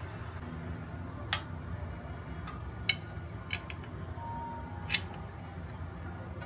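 About four sharp clicks a second or so apart, as a wire plate-lifter clamp knocks and grips against a ceramic plate in a metal steamer, over a low steady hum.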